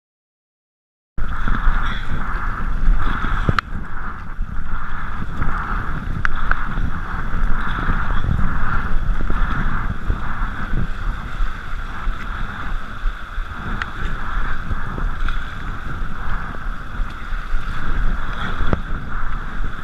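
About a second of silence, then fast river water rushing and churning around an inflatable kayak running a riffle, with wind buffeting the microphone and the splashes of paddle strokes.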